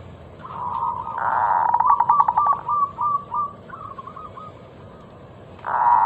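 Zebra dove (perkutut) song: a phrase that opens about a second in with a rapid stuttering run of notes and trails into a string of short, repeated coos, with a second phrase starting near the end.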